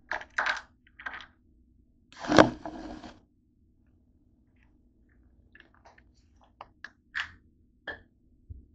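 Camera handling noise as it is moved on a desk: a few rustling bumps, then a louder scrape and knock about two and a half seconds in, followed by a scatter of small clicks.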